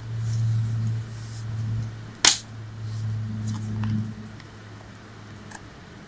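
Plastic casing of an Apple 85 W MagSafe power adapter being pressed shut by hand, with one sharp snap a little over two seconds in and a few fainter clicks later, over a low steady hum.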